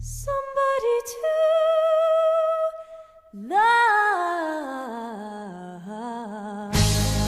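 A singing voice without accompaniment: one long held note, a brief pause, then a phrase that swoops up and falls away with vibrato. Near the end the full band with bass comes back in.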